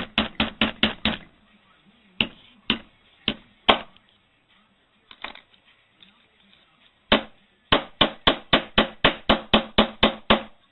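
A hand tool striking a partly dismantled mobile phone in sharp knocks. They come in fast runs of about five blows a second at the start and near the end, with a few slower single blows in between.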